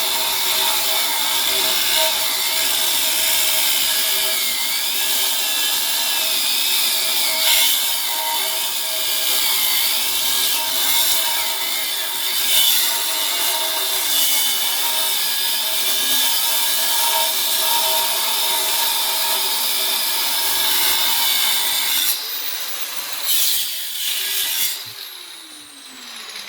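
Power saw cutting into the thick steel wall of a safe, running steadily under load with a high whine that wavers slightly. About 22 seconds in it is switched off and its pitch falls as the blade spins down.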